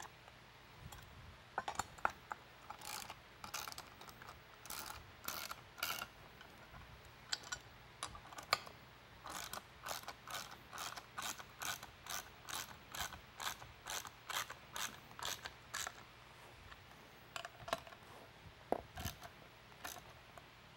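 Hand socket ratchet tightening bolts, its pawl clicking on the back-swings. The clicks come sparsely at first, then settle into a steady series of about two a second, and stop near the end.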